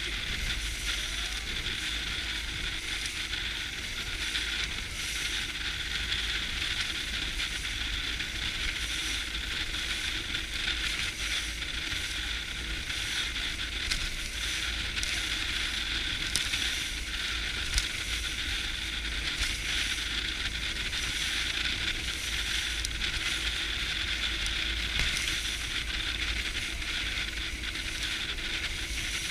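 Inflatable boat under way on the sea: a steady rushing hiss of water and wind along the hull over a low rumble, with a few sharp ticks.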